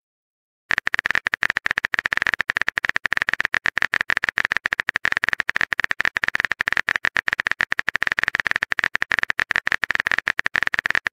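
Simulated keyboard typing clicks from a texting-story app, a rapid, even ticking of about fifteen clicks a second, one per letter as a chat message is typed out. It starts just under a second in.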